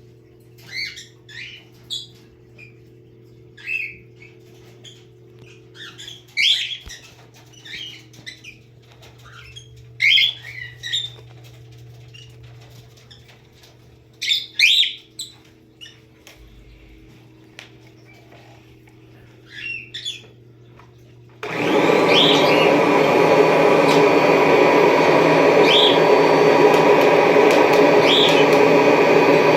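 Birds chirping in short calls over a faint steady hum; about 21 seconds in a Kirby G5 upright vacuum cleaner is switched on and runs loud and steady.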